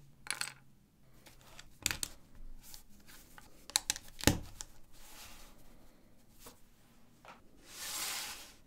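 LEGO 1×4 plates being handled and pressed together: a few sharp plastic clicks, the loudest about four seconds in, then a brief rustle near the end.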